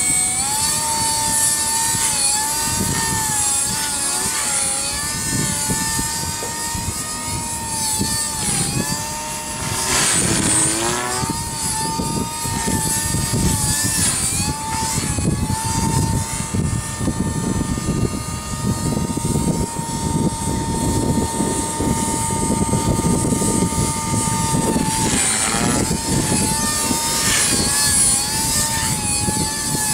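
Walkera V200D03 200-size RC helicopter in flight: a steady high whine from its motor and rotors that wavers in pitch as it is flown, dipping sharply and recovering about ten seconds in. Gusts of wind rumble on the microphone underneath.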